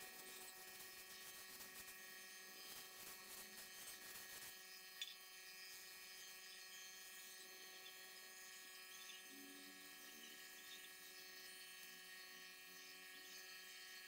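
Faint, steady electrical hum. Over it, a faint hiss from a compressed-air paint spray gun stops after about four and a half seconds, and a single click follows about five seconds in.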